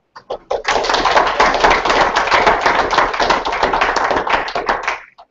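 Small audience applauding: a few first claps, then steady dense clapping for about four seconds that dies away near the end.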